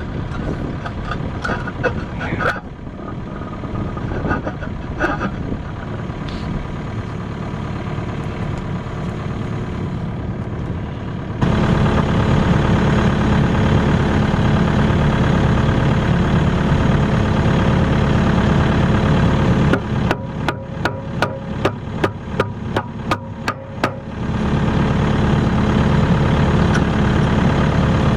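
Kubota KX080-3 excavator's diesel engine running. It steps up suddenly and becomes louder about eleven seconds in. A little past the middle comes a quick run of about a dozen sharp knocks, roughly three a second, and then the louder running resumes.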